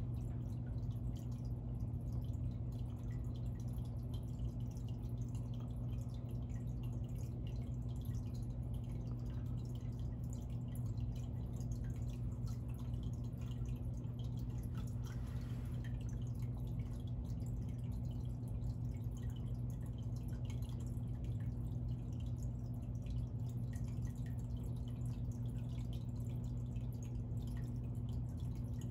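Reef aquarium running: a steady low electrical hum from its equipment, with water dripping and trickling in small irregular ticks.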